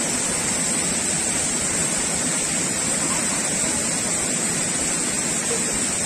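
Steady rush of a waterfall pouring into a pool, an even roar of churning water.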